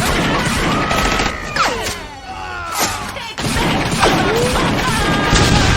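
Rapid, sustained gunfire from a drive-by, with whistle-like tones gliding down and up over it. The shooting eases briefly in the middle, then resumes.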